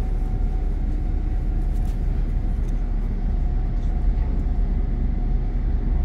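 Loud machinery aboard a boat running steadily: a constant low rumble with a faint steady hum above it.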